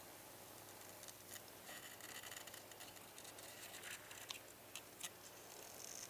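Masking tape being peeled off the painted plastic interior of a model car with metal tweezers: faint scratchy rustling about two to four seconds in, then a few light clicks.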